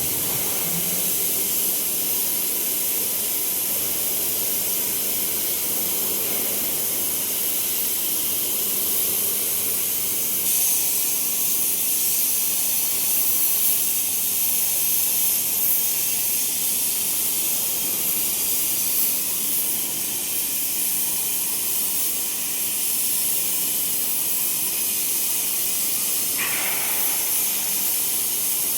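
CNC cutting torch cutting through steel plate with a steady, loud hiss.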